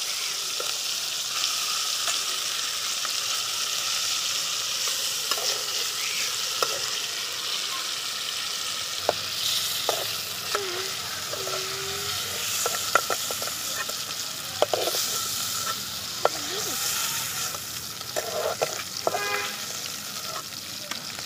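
Marinated chicken pieces frying in hot oil in a karai, a steady sizzle throughout. From about nine seconds in, short clinks and scrapes of a utensil against the pan are heard over it.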